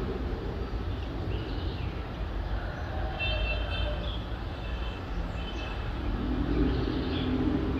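Birds chirping in short repeated calls over a steady low rumble of city background noise, with a louder low drone building near the end.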